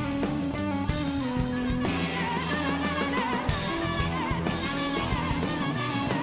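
Rock band playing live, with electric guitar to the fore over bass and drum kit. From about two seconds in, a lead line with wavering, bending notes rides on top.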